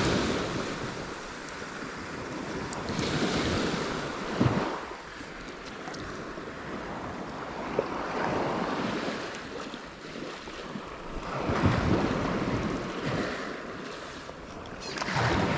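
Sea waves washing in, swelling and falling back about every three to four seconds, with wind buffeting the microphone.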